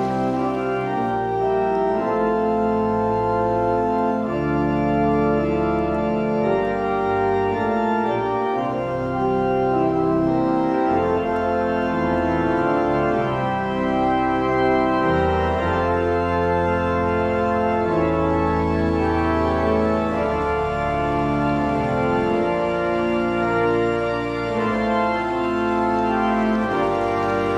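Organ playing the closing postlude in slow held chords, with long sustained bass notes beneath that change every second or two.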